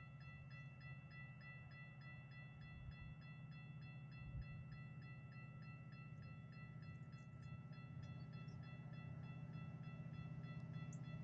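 Railroad grade-crossing warning bell ringing in a fast, steady rhythm, over a low rumble that slowly grows louder as a Metra commuter train approaches.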